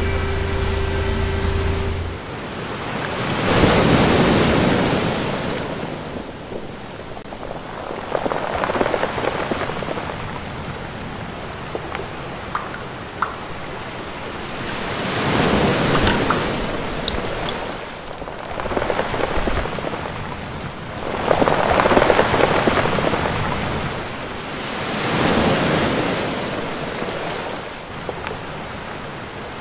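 A steady machine hum stops about two seconds in; then sea waves wash in and draw back, swelling and fading about five times, every four to six seconds.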